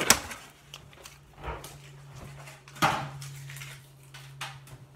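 Clear plastic dome lid of a rotisserie chicken container snapped open with a sharp click, followed by a few scattered plastic clicks and knocks as it is handled, over a low steady hum.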